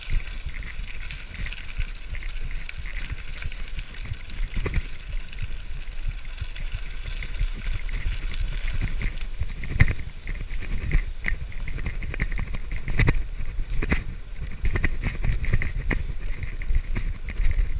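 A bicycle rolling along a path, picked up inside a GoPro's waterproof housing: steady tyre rumble and wind noise. From about ten seconds in, sharp rattling knocks come in as the bike goes over bumps.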